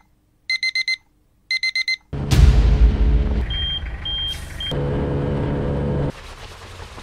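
Electronic alarm clock beeping in groups of four quick high beeps, about once a second. About two seconds in it gives way to a loud rumbling noise with a steady low hum and a few short high beeps.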